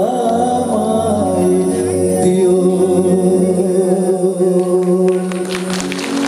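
Live band playing a Bengali song on tabla, keyboards and electric guitar, the singer holding a long, wavering note into the microphone. Near the end the song winds down and audience clapping begins.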